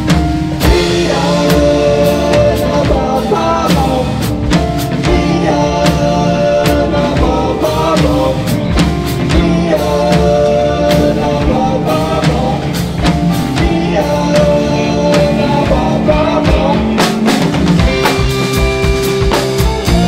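Live band music: a drum kit playing busy, steady patterns with frequent snare and rimshot hits under piano, electric guitar and bass, with a wavering melody line on top.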